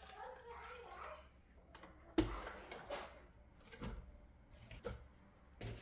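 Scattered light knocks and clicks, roughly one a second, typical of handling cups, utensils or objects on a table.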